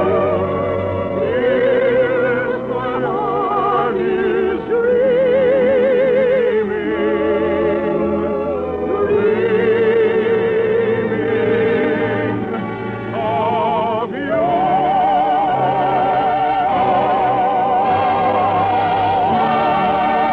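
Operatic singing with wide vibrato over orchestral accompaniment, in a song from a 1953 radio musical. The phrase climbs to a long, held high note about two-thirds of the way through. The sound is narrow, with the top end cut off, as on an old radio transcription.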